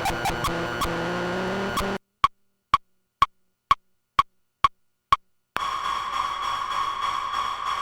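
Experimental electronic noise music. A layered, hissy texture with clicks cuts out about two seconds in to total silence. The silence is broken by seven short evenly spaced blips, about two a second, like a sonar ping. Then a steady hissing drone with a high held tone comes in near the end.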